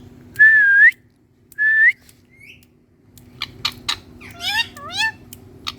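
Indian ringneck parrot giving two loud whistles, each held on one note then flicking upward at the end, then after a short pause a quick run of clicks and short rising chirps.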